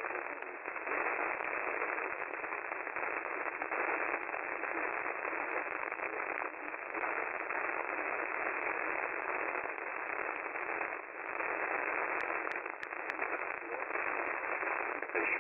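Radio static: a steady hiss of receiver noise squeezed into a narrow, phone-like band, with a few sharp clicks about twelve to thirteen seconds in.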